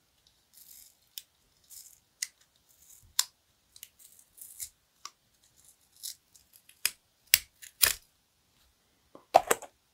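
Adhesive foil tape being peeled by hand off a GoPro screen's metal backing: scattered faint crackles and sharp little clicks, with a few louder clicks after the middle and near the end.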